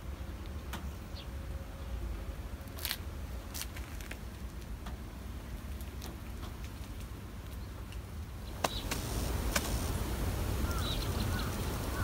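Outdoor ambience: a low steady rumble with a few scattered clicks. It grows louder and hissier about two-thirds in, and a few short bird chirps come near the end.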